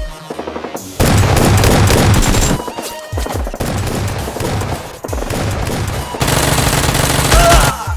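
Bursts of rapid automatic gunfire over background music, loudest about a second in and again near the end.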